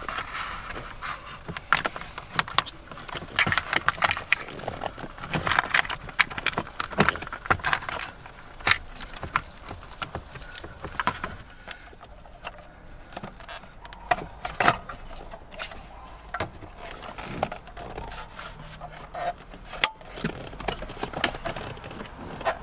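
Bundled wiring-harness cables and their plug connectors rubbing and scraping against plastic dashboard trim as they are pushed through behind the head unit, with many irregular clicks and knocks of hard plastic. There is one sharp click near the end.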